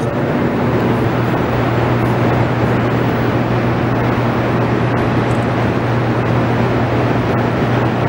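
Steady drone of the Hoover Dam powerhouse's running hydroelectric generators: an even rushing noise with a constant low electrical hum under it.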